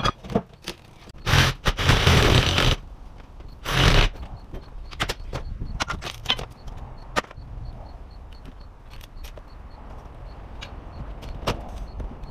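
A hand tool prying and scraping at an old window frame and its flashing: many sharp knocks and clicks, with two louder scraping rasps in the first four seconds.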